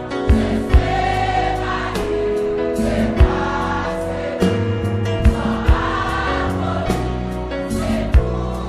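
Gospel worship music: a choir singing held notes over a band with a steady bass line and drum hits every second or two.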